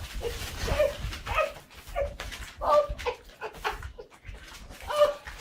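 A dog whining and yipping in short, high calls repeated several times a second.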